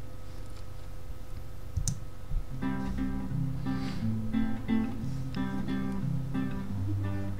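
End-credits music played on a plucked acoustic guitar, coming in about two and a half seconds in after a quiet start, with the notes picked out in a repeating chord pattern.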